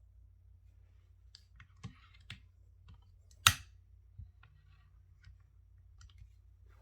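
Scattered light clicks and taps from unboxing handling, with one sharp, loud click about three and a half seconds in.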